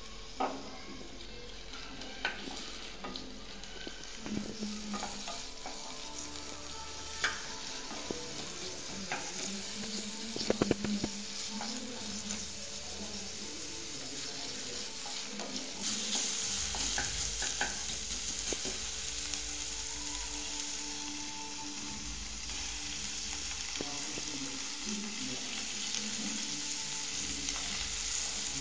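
Food sizzling as it fries in a pan while it is stirred, with occasional sharp clinks of a utensil against the pan. The sizzle grows louder about halfway through.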